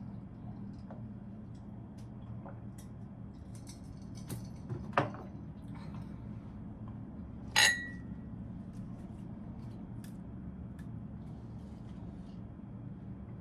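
Glassware handled on a kitchen countertop: a few light knocks, then one sharp glass clink with a brief ring about halfway through, over a steady low hum.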